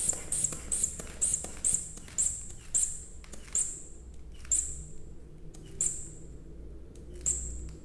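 Rubber inflation bulb of a blood-pressure cuff squeezed over and over, each squeeze a short puff of air with a click. The squeezes come about three a second, then slow to about one a second after the first three seconds. The cuff is being pumped up to the point where the radial pulse disappears, the palpatory estimate of systolic pressure.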